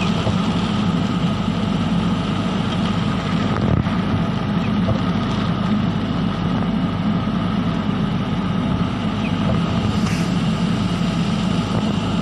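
Steady vehicle drone heard from inside the cabin while driving in the rain: engine and road noise running evenly.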